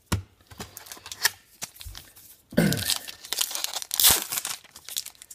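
A few light taps from cards being handled, then a foil trading card pack being torn open and crinkled from about two and a half seconds in.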